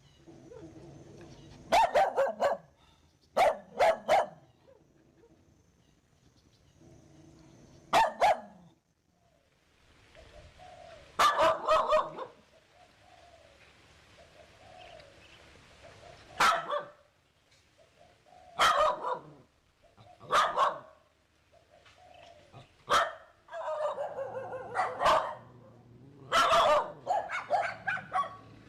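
A dog barking in short single and double barks spaced a few seconds apart, breaking into a quicker run of barks near the end.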